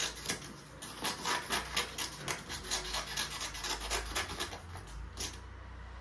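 A recorded sound effect played through a small speaker: rapid, irregular scratchy clicks and rubbing that stop about five seconds in, leaving a low hum.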